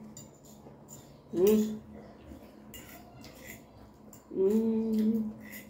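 Metal forks and a spoon clicking and scraping on glass plates during a meal, with small clicks of eating. A diner hums twice, briefly and then for about a second.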